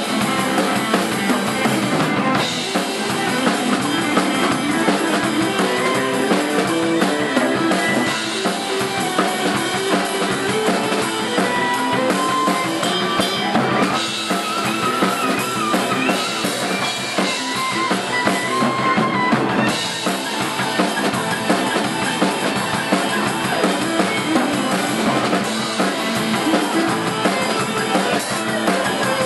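Live acoustic guitars playing an instrumental Irish-style tune, a strummed rhythm with a picked melody line over a steady beat.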